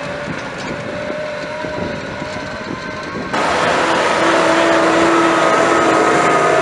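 Tractor engine running steadily under load, pulling a Kverneland CLC Pro stubble cultivator through dry soil, with a steady whine over the noise. About a third of the way in the sound cuts abruptly to a louder, closer take of the tractor working, with a different set of whine pitches.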